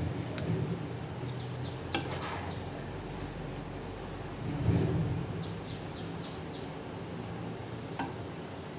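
A steel spatula scooping soft semolina sheera from a non-stick pan into a small steel bowl, with a few sharp clicks of the spatula against the metal and a dull bump about halfway. A high, regular chirping, about two or three chirps a second, runs in the background.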